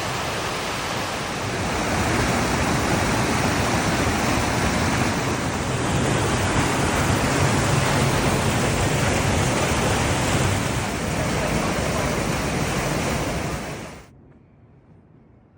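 Waterfall rushing: a loud, steady noise of falling water that cuts off suddenly about fourteen seconds in.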